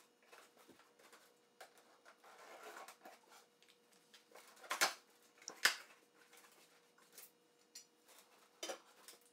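Metal parts of a bandsaw mobile base kit clinking and knocking as they are unpacked from their cardboard box, with cardboard rustling; two sharper knocks come about five and six seconds in.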